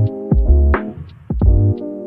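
Electronic background music: a synthesizer chord over a heavy bass-drum beat with sharp percussive hits about twice a second.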